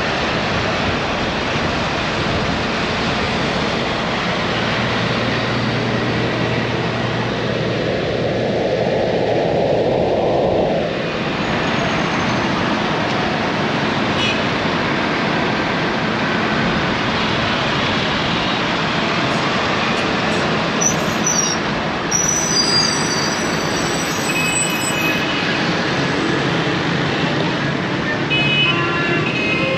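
Steady road traffic noise with vehicles running past, and a few brief high squeals about two-thirds of the way through.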